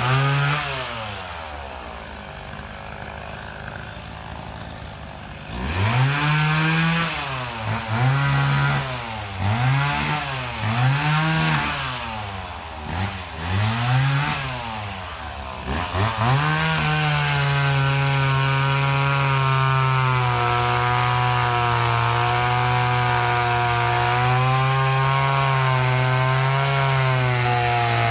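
Two-stroke chainsaw dropping from full throttle to a quieter idle, then revved in about half a dozen quick blips. For the second half it is held at steady full throttle with small dips in pitch, as when cutting through wood.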